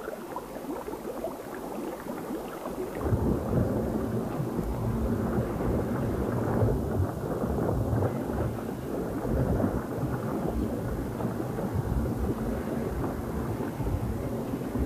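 Water churning and bubbling inside a transparent transport tube, a rushing rumble that swells about three seconds in and then holds steady.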